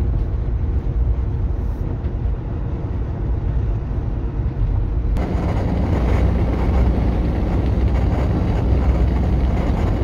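Wind and road noise inside a 2007 Subaru Forester XT's cabin at 50 mph; after a cut about five seconds in, the same at 70 mph, louder and with more hiss. The noise comes from air leaking past the front window's gussets, which the owner says have swollen with age.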